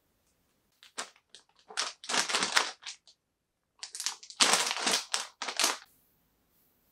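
Plastic zip bag of dried anchovies crinkling as it is handled and opened, in two spells of crackly rustling.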